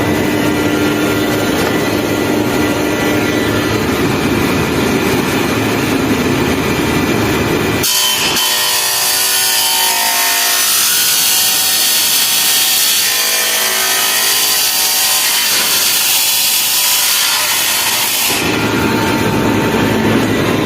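Angle grinder with a cutting disc running steadily, then about eight seconds in the disc bites into metal and the sound turns to a harsh, high hiss for about ten seconds before easing back to the plain running note.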